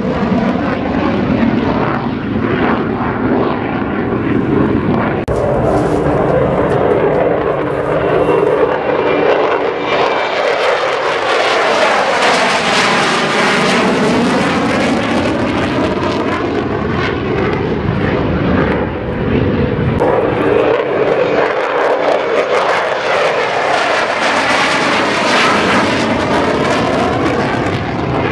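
Loud, continuous turbofan jet noise of F-16 fighters climbing out after take-off. The tone sweeps as each jet passes, about ten seconds in and again about twenty seconds in.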